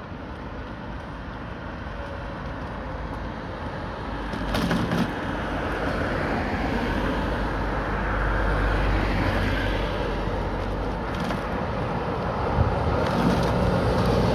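Road traffic on a wet street: tyres hissing on wet asphalt as a car goes by around the middle, swelling again as a bus draws close near the end.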